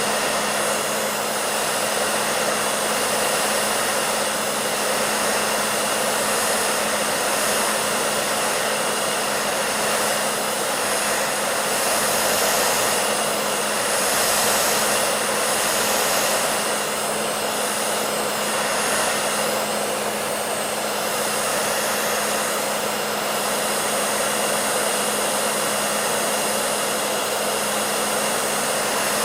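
Electric hair dryer running continuously: a steady rush of blown air over a constant motor hum.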